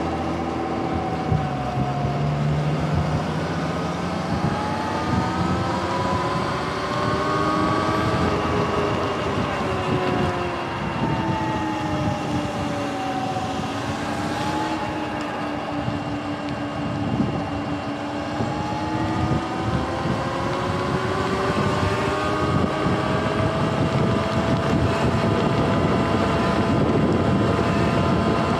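Sur-Ron electric dirt bike's motor and drive whining, the pitch rising and falling with road speed, over tyre hiss on a wet road.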